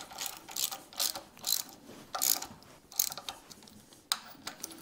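Ratchet wrench clicking in short, repeated strokes as bolts are run down snug on a cover of a cast-iron tractor transmission housing.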